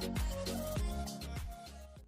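Background music with a steady beat of deep, pitch-dropping kick drums under sustained tones, fading out near the end.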